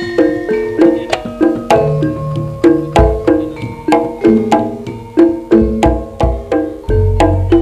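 Javanese jaranan gamelan music: tuned metal percussion struck in a steady quick beat, with deep drum strokes coming in about three seconds in and again near the end. No singing.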